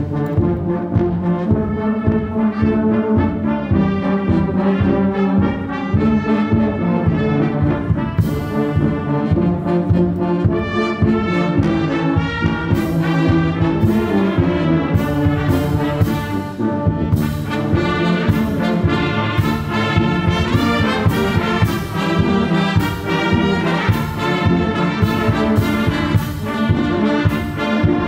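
Church brass band of trumpets, trombones, tubas and saxophones with flutes playing a piece together in full, sustained harmony. From about halfway in, percussion hits mark a steady beat.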